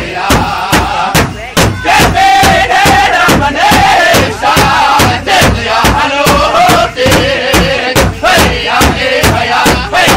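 Powwow drum group: a large drum struck in a steady beat, about three strokes a second, with several voices singing a high, wavering chant over it.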